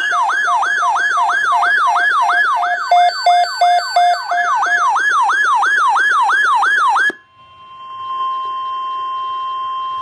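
Electronic alert siren sweeping rapidly downward in pitch about three times a second over a pulsing lower tone, cutting off suddenly about seven seconds in. A steady single-pitch alert tone then takes over and holds, typical of the weather-radio warning alarm that opens an emergency alert.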